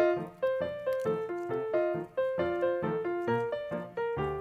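Background music: a keyboard melody, several notes a second, each starting sharply and fading quickly.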